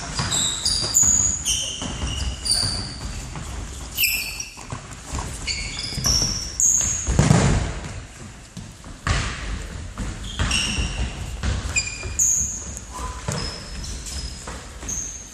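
Indoor football in a sports hall: many short, high squeaks of trainers on the hall floor, with thuds of the ball being kicked and bouncing, echoing in the hall.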